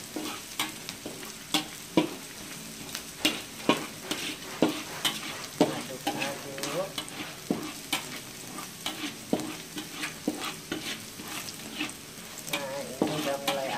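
Sliced shallots and minced garlic sizzling in hot oil in a wok while a metal spatula stirs them, with irregular sharp clacks of the spatula striking and scraping the pan about once or twice a second.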